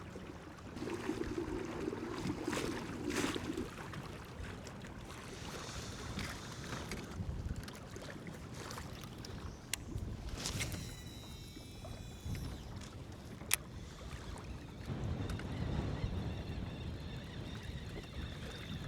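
Kayak moving across open water: water sloshing against the hull with wind buffeting the microphone, and two sharp clicks about ten and thirteen seconds in.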